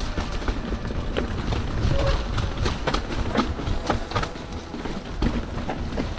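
Mountain bike descending a rocky trail: tyres rolling over rock, with many irregular sharp knocks and rattles from the bike over a steady low rumble.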